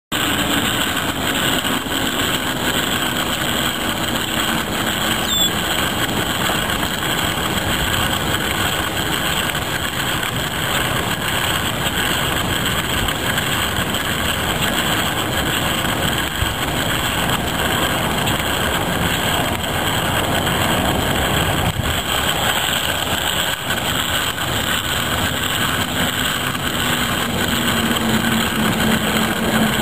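A steady mechanical running noise, like a small motor, with a constant hiss.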